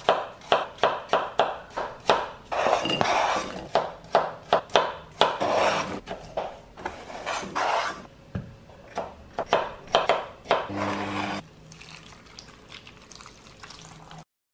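Knife chopping apple and pear on a chopping board: a steady run of sharp taps, about three a second, broken by scraping as the pieces are pushed across the board. After about eleven seconds the chopping stops and only faint sounds remain.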